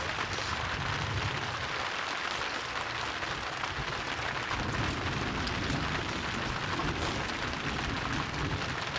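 Steady hiss with a low rumble beneath it.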